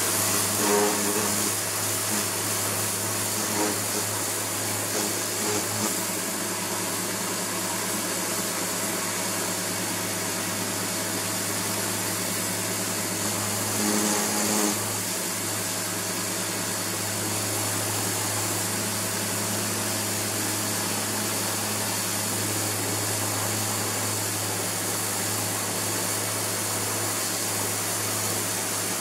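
Kärcher pressure washer running steadily: a constant motor hum under the hiss of the high-pressure jet blasting grime off a plastic sun lounger.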